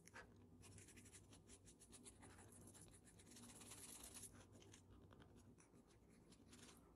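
Faint, quick scratching strokes of a drawing tool rubbing on toned drawing paper, dense for the first four seconds or so, then sparser.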